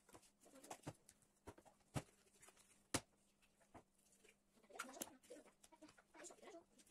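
Near-silent room with a few sharp taps and clicks from handling on a wooden table and cutting board, the sharpest two about two and three seconds in, and faint brief chirp-like sounds about five seconds in.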